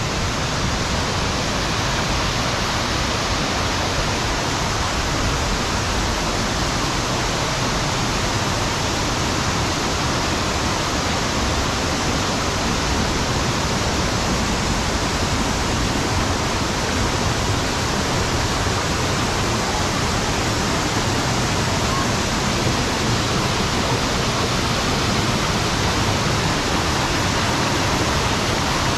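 Waterfall: a steady, loud rush of falling water with no change.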